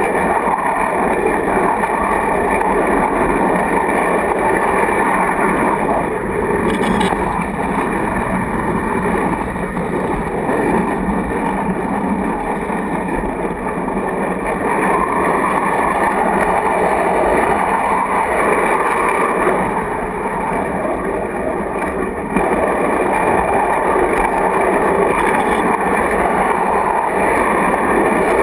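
Steady rolling rumble and rattle of a 7/8n2-scale model train car running on its track, picked up from inside the car. The noise rises a little, suddenly, about three quarters of the way through.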